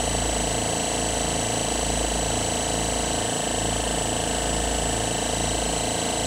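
Oil-less dental air compressor running steadily, its piston pumps keeping up an even, regular beat, with the intake filter boxes not yet fitted.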